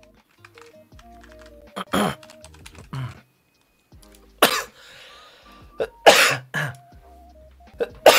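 Someone coughing and clearing their throat, about five short loud bursts spread over several seconds, over soft background music of slow, held notes.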